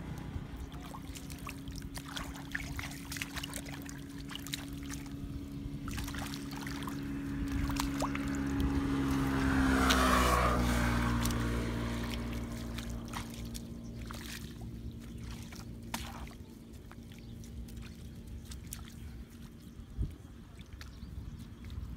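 A motor vehicle's engine passing by: a steady hum that grows louder to a peak about ten seconds in, drops in pitch as it goes past, then fades. Small splashes and drips of water sound on and off.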